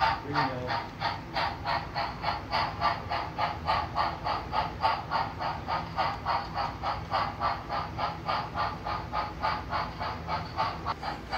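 Sound unit of a Blue Line HO-scale model of Frisco #1630, a 2-10-0 Decapod steam locomotive, playing steady exhaust chuffs through its small onboard speaker, about four a second.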